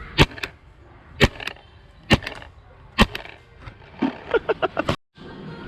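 Paintball marker shots: sharp pops about once a second, each followed by a fainter smack, then a rapid string of quicker shots near the end that cuts off suddenly.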